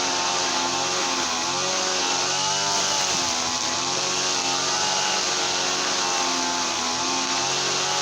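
Small gasoline engine running steadily, its speed wavering briefly about two to three seconds in.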